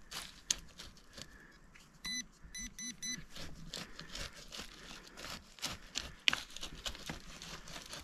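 Metal detector pinpointer beeping about four short times a little over two seconds in, signalling metal in the soil, which the detectorist takes for some small nail. Around it the probe scrapes and crunches through loose dirt and twigs.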